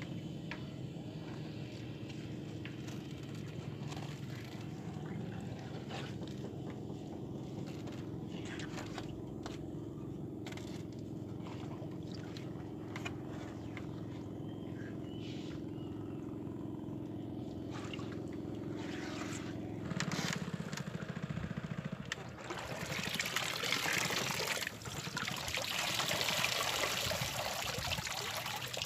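A steady low hum for about twenty seconds, then loud splashing and pouring of water as a mesh net bucket is lifted out of the pond and drains through its mesh.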